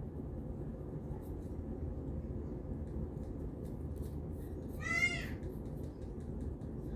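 Fine-tooth plastic comb scraping over a scalp and through short, tightly coiled hair, heard as faint scattered scratchy ticks over a steady low hum. About five seconds in comes a short, high, wavering cry, rising then falling, of unclear source.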